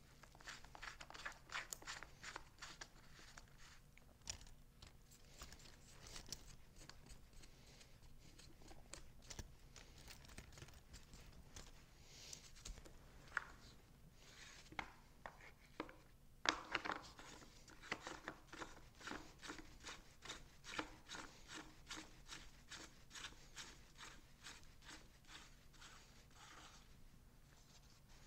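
Faint clicking, ticking and rattling of a chain being handled on a DeWalt cordless chainsaw's bar as the new chain is seated and tensioned. The plastic side cover is put back on, with a denser burst of clicks and knocks past the middle.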